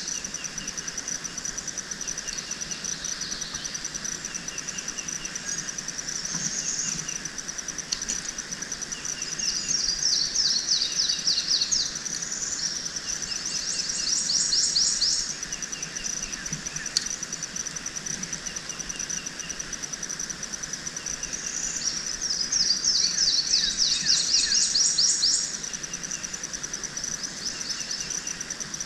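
A steady high-pitched insect trill, with several bouts of rapid, louder bird trills rising over it and fading away.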